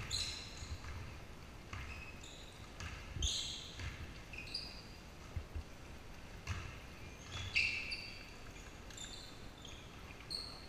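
Basketball game on a hardwood gym floor: many short, high sneaker squeaks in quick succession, with low thuds of the ball and feet beneath them.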